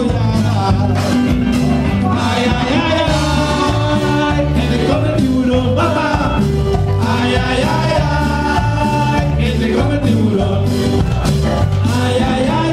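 Live band playing Latin dance music, with a singer over electric guitar and a steady, repeating bass line.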